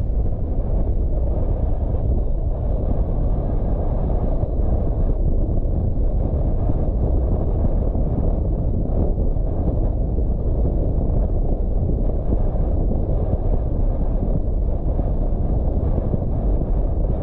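A car driving at a steady speed: a low, steady rumble of tyre and road noise mixed with wind buffeting the microphone.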